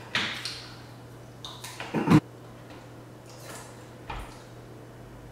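Eating and peeling noises at the table: seafood shells being pulled apart by hand, with chewing. There are a few short crackles and knocks, and the loudest comes about two seconds in.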